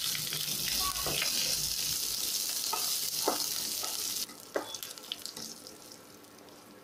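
Curry leaves, mustard seeds and cumin sizzling in hot oil in a kadai as a wooden spatula stirs them: the spice tempering (tadka) frying. The sizzle cuts off suddenly about four seconds in, leaving a few knocks of the spatula against the pan.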